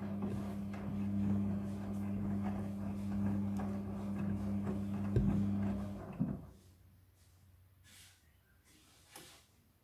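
Midea front-loading washing machine running with a steady low hum and rattling noise, which stops about six seconds in, leaving only a few faint clicks.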